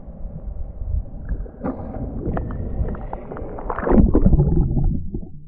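Sea water splashing and sloshing right at the camera, with irregular knocks and rustles, loudest about four seconds in.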